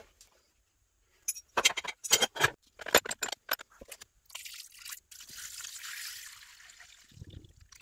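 Cast metal block-plane parts clacking against a plastic tub as they are set in, a string of sharp knocks. Then liquid pours steadily over them for about three seconds, filling the tub with rust-remover solution for a soak.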